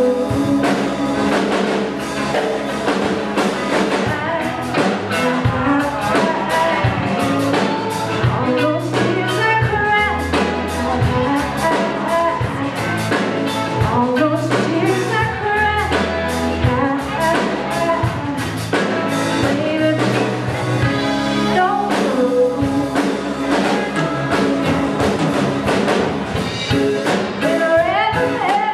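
A live band playing a song: drum kit, electric guitars and keyboard, with singing.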